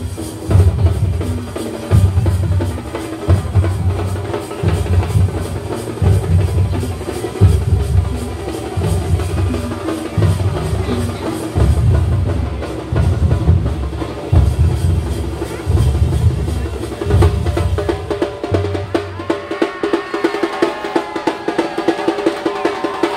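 Thambolam percussion band playing a loud, driving beat. Heavy bass-drum strokes land about once a second over fast, lighter drumming. The bass drum drops out about nineteen seconds in, and the rapid lighter drumming carries on.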